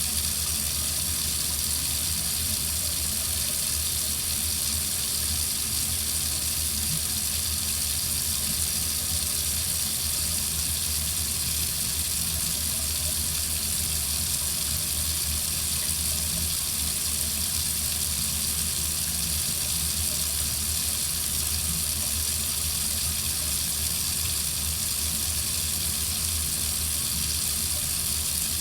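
Water faucet running in a steady, unchanging stream.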